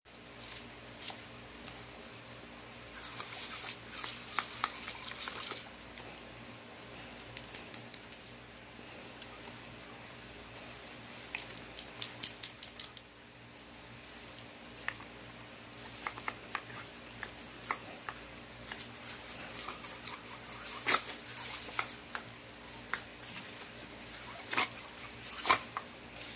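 Oscillating lawn sprinkler spraying and pattering onto grass while two Australian shepherd dogs bite at the water jets. Their snapping gives quick runs of sharp clicks, several a second, over the hiss of the spray.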